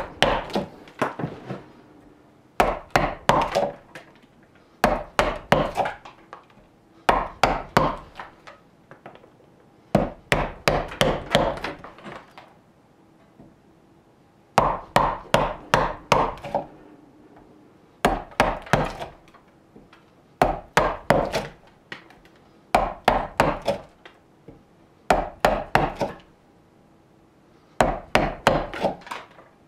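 A mallet striking a wide semicircular gouge into raw birch. The blows come in quick runs of about four to six, with short pauses between, as the gouge chops out the hollow of a wooden cup.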